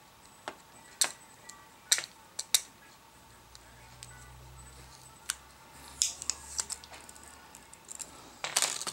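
Small metal parts and hand tools clicking and tapping irregularly while a laptop hard drive's magnet assembly is pried at, about a dozen sharp ticks, with a short scraping rustle near the end.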